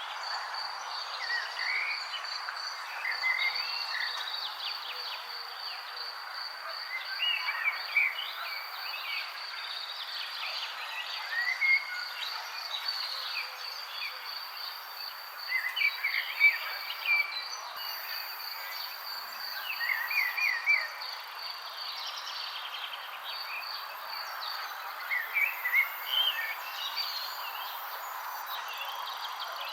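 Birds chirping in short phrases every few seconds over a continuous high, pulsing insect trill and an even background hiss.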